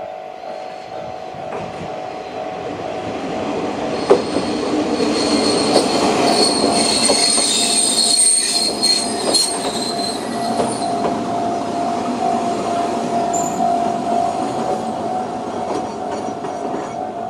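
Level-crossing electronic warning bell, JR Central-type tone, ringing steadily while a two-car diesel train of KiHa 28 and KiHa 52 railcars passes over the crossing. The train grows loud from about four seconds in, its wheels squealing high-pitched for several seconds, with clicks from the rails.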